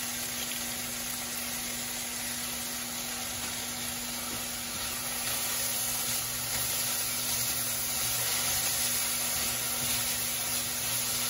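Yakisoba noodles sizzling in a frying pan as they are stirred and tossed with chopsticks, a little louder from about halfway, over a steady low hum.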